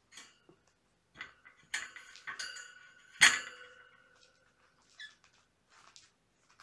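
A few light knocks and a clatter on something hard, the loudest about three seconds in, each followed by a brief ringing tone that dies away within a second; soft rustling around them.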